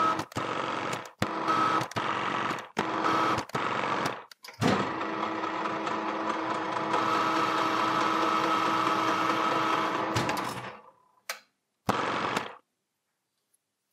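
Metal lathe running with a steady whine while a carbide insert single-point cuts a metric thread in a steel part. It comes in short chopped pieces at first, then runs unbroken for about six seconds before winding down about ten seconds in, with two brief returns.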